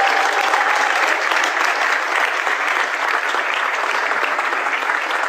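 Audience applauding: a crowd's steady, dense clapping.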